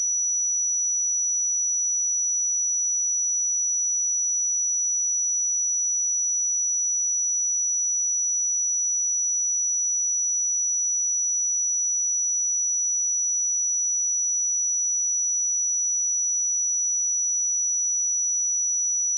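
A steady pure sine-wave test tone at 5891 Hz, a single high-pitched whistle held at a constant level.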